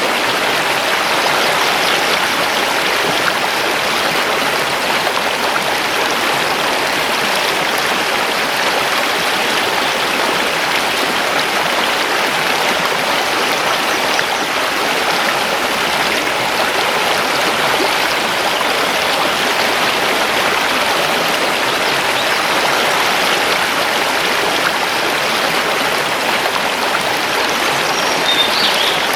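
Mountain river flowing over stones: a steady, even rushing of water. A brief high bird chirp comes near the end.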